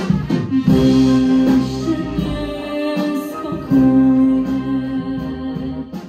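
A woman singing through a microphone over a wind band accompaniment, holding long notes.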